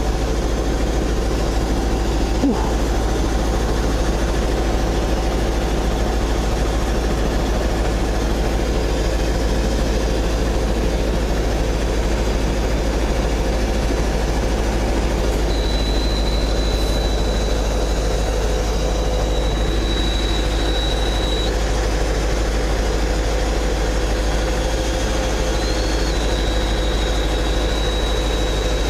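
Scania 143M truck's V8 engine and road noise heard from inside the cab while driving on the road: a steady drone with a low rumble. A faint thin high whistle comes in about halfway through and again near the end.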